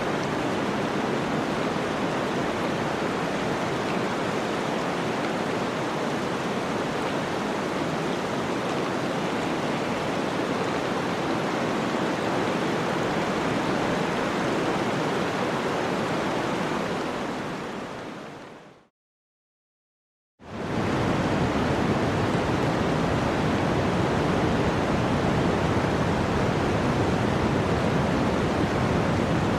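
Running water rushing steadily. It fades out about two-thirds of the way through, gives way to a second and a half of silence, then a second running-water recording fades in.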